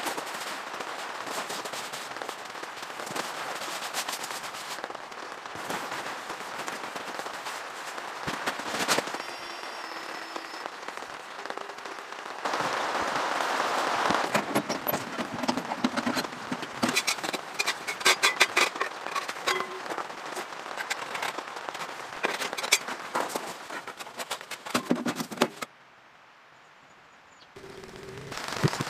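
Rain pattering on a tent and the tarp stretched over it, a steady hiss full of sharp, irregular drop taps. It grows heavier about halfway through, with a brief lull near the end.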